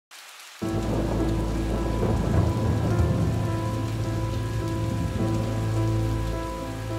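Steady rain with a deep thunder rumble, starting about half a second in, over a few low held humming tones.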